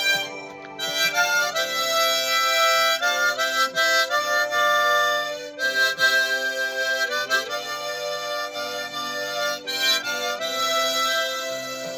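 Harmonica playing a slow gospel song melody in held notes with several tones sounding together, with short breaks between phrases about half a second in, near the middle and near the end.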